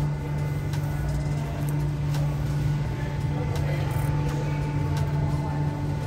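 Steady mechanical hum of the London Cable Car's Doppelmayr gondola machinery, heard from inside a cabin as it moves through the station, with a few faint clicks.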